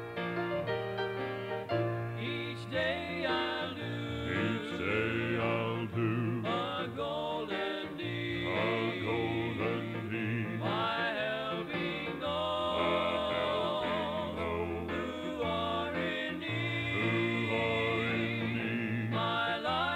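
Gospel vocal group singing with instrumental accompaniment; the voices come in about two seconds in, after a short instrumental passage.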